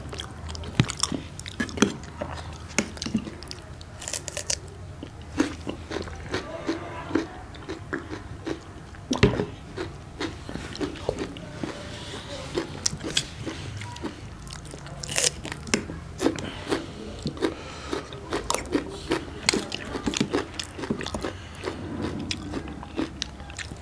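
Two people eating: chewing and biting with crunching, and sharp clicks of steel spoons against steel plates and bowls.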